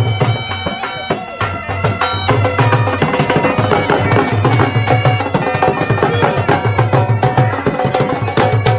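Folk music: a double-headed drum beaten in a steady rhythm under a sustained, reedy wind-instrument melody.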